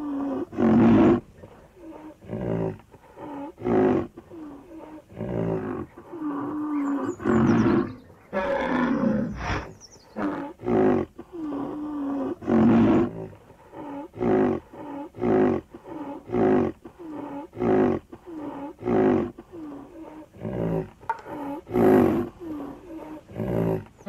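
Rhinoceros calls: a long run of short, deep calls, one or two a second, some with a pitch that dips and rises. A few faint high falling chirps come in partway through.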